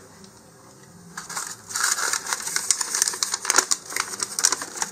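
Small model rocket kit parts being handled: from about a second in, a quick run of light clicks, taps and crinkly rustling.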